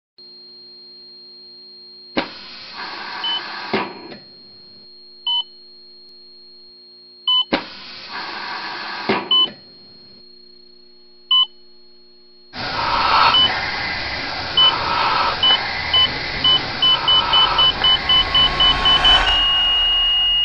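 Electronic sound design: a faint steady hum with a high thin tone, two short surges of harsh noise with single beeps between them, then a louder swell of noise under beeps that speed up and run into one continuous tone near the end.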